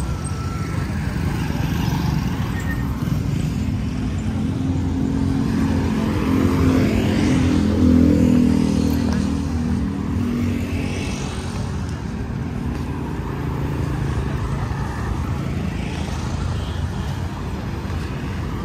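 Street traffic: motor vehicle engines running steadily, with one vehicle passing close and loudest about eight seconds in.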